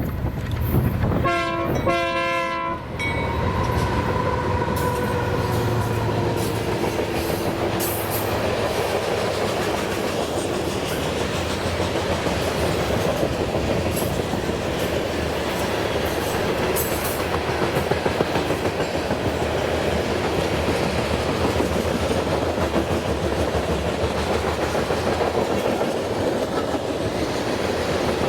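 Diesel freight locomotive's air horn sounding two short blasts about a second in, its chord of several notes fading away over the next few seconds. Then the steady rumble and clatter of freight cars rolling past on the rails, with occasional sharp clicks.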